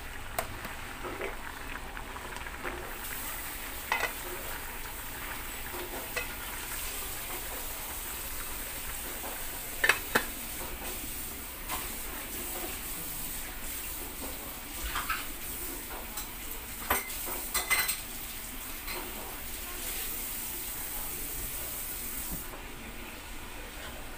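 Instant ramyun broth simmering in an aluminium pot with a steady hiss. Several sharp metal clinks of a ladle and the pot lid sound over it, the loudest a double clink about ten seconds in, as the lid goes on.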